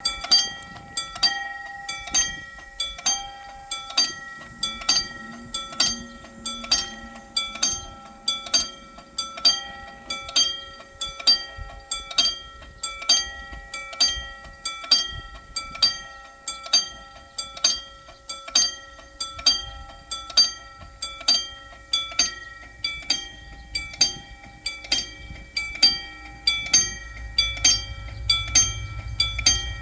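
Korean railroad crossing warning bell ringing in a steady, even rhythm of about one and a half dings a second. A low rumble from an approaching train builds under it in the last ten seconds.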